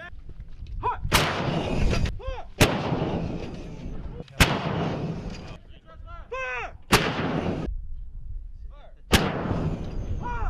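105mm towed howitzers firing: five sharp reports in about eight seconds, each trailing off in a long rumbling echo.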